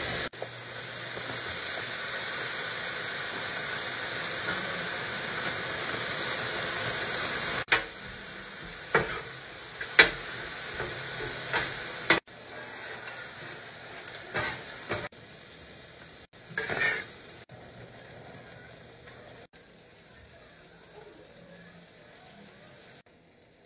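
Food sizzling on a flat-top griddle, with several sharp clicks and scrapes of a metal spatula against the cooking surface as fried rice is turned. The sizzle is strong at first and grows quieter in the second half.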